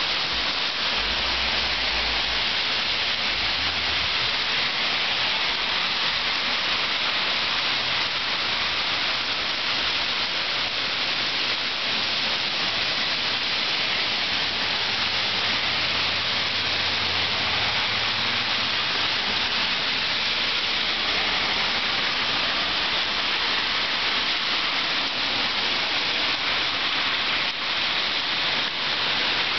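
Heavy rain pouring down steadily on a street, a dense, even hiss.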